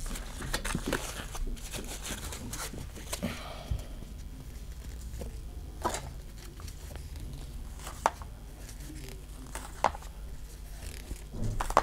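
Pokémon trading cards handled in gloved hands: cards sliding against each other and against the gloves as they are flipped through one by one, with soft rustling and a few sharp card clicks about two seconds apart.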